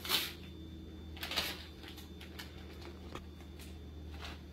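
Plastic zip-top bag crinkling and rustling as it is handled, with two louder crinkles in the first second and a half and lighter rustles after, over a steady low hum.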